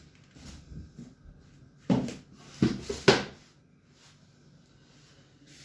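A few sharp knocks and clunks of objects being handled, about two seconds in and again a little before and at three seconds in, the last the loudest.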